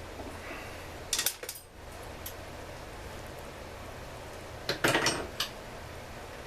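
Metal tools or chainsaw parts clinking and clattering as they are handled and set down on a workbench, in two short bursts: about a second in and again about five seconds in.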